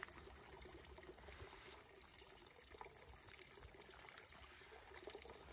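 Faint trickling and lapping of water, barely above near silence, with a few small ticks.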